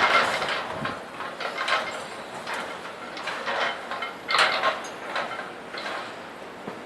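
Scrap metal crashing and clanging as a loader handles it in a scrap yard: a loud crash at the start, then a run of further metallic crashes and clatters every second or so, with another loud one about four and a half seconds in.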